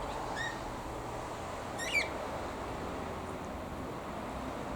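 Cockatiels calling: a faint short chirp about half a second in, then a louder, harsh chirp about two seconds in.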